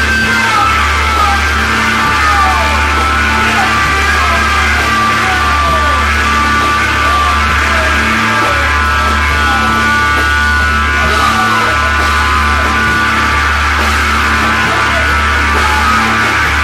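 Loud psychedelic rock music: long held bass notes under a dense wash of sound, with repeated falling glides in pitch.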